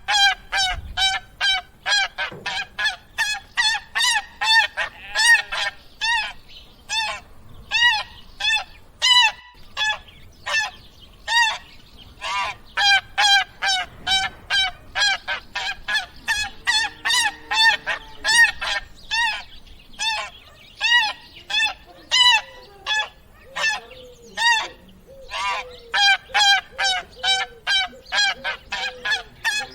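Geese honking: many short honks in quick, irregular succession, at several different pitches.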